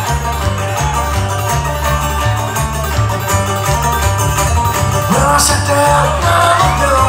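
A bluegrass string band playing live. Banjo, mandolin and acoustic guitar pick over a pulsing cello bass line, and a singing voice comes in about five seconds in.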